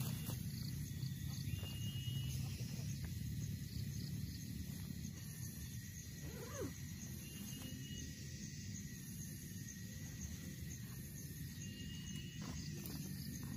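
Quiet outdoor ambience: a steady low rumble with three short, even, high whistle notes spread through it and a few faint ticks and rustles.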